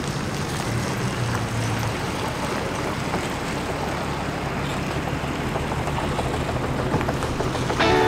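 Car engine running at idle with a steady low hum over a noisy background. Music cuts in right at the end.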